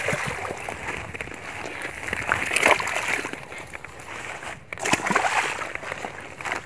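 Large common carp being handled on a wet plastic tarp: irregular rustling of the plastic and wet slaps.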